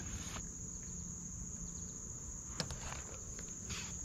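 Steady, unbroken high-pitched drone of insects in summer vegetation, with a couple of faint clicks and a brief rustle near the end.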